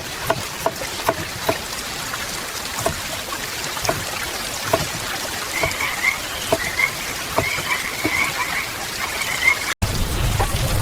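Steady rain with single water drops plinking down about two or three times a second. Through the middle, frogs call in short repeated croaks. Near the end the sound cuts out for an instant and comes back as heavier, fuller rain.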